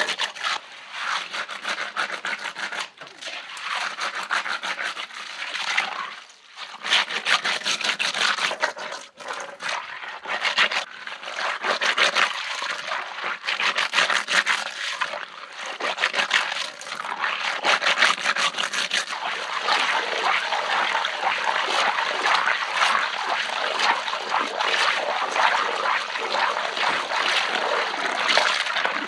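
Freshwater marsh snails being scrubbed and crushed by hand against the rough inside of a stone mortar with a little water: a dense, gritty crackle of shells grating on stone and on each other, with a few short pauses.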